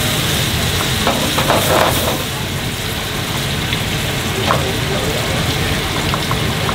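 Tomato sauce sizzling and simmering in a frying pan while a silicone spatula stirs it, with a few short scrapes against the pan, over a steady low rumble.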